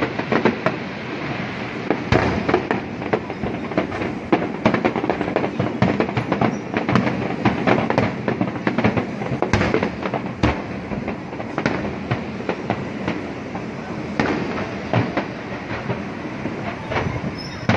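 Aerial fireworks display: many sharp bangs and crackles from bursting shells in quick succession, with no break.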